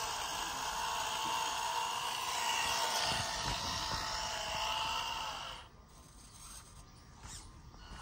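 Small electric drive motor of a handmade model tractor whining steadily as it drives through sand. The whine drops away about five and a half seconds in.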